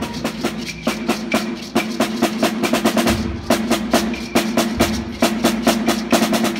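School concert band in a percussion-led passage: rapid, even snare drum strokes, several a second, over a held low wind chord, with a deeper low sound joining about halfway through.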